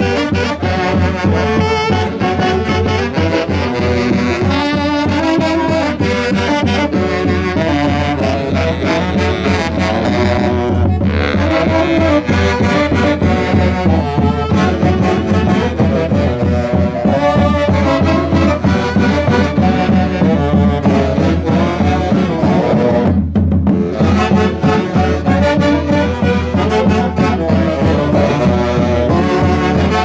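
Brass and saxophone band playing a lively santiago festival tune with a steady beat.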